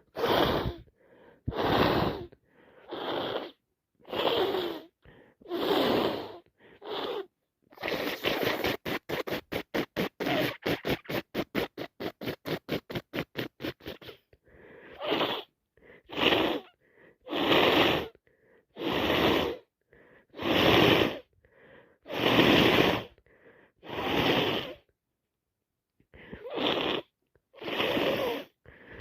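A person with a heavy cold sneezing, sniffing and breathing hard: a long run of short, noisy bursts about every second or so. In the middle comes a fast train of quick sniffs or gasps, about five a second, lasting several seconds.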